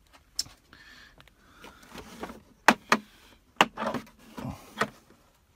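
Handling noise from tool packages and hard plastic tool cases on the truck's shelves: a handful of sharp knocks and clicks, with soft scuffing and rustling between them.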